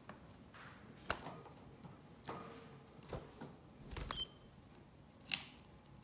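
Light taps and clicks, five or so, spaced about a second apart, as a female canary moves about the cage and onto her nest. There is a brief high note about four seconds in.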